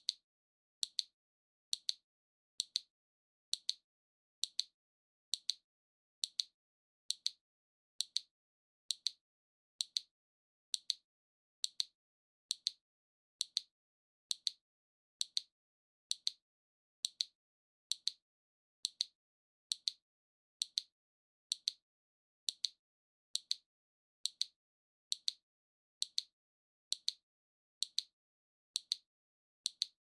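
Waving maneki-neko (lucky cat) figurine's arm mechanism ticking steadily as the paw swings: a short, sharp click about once a second, with silence between.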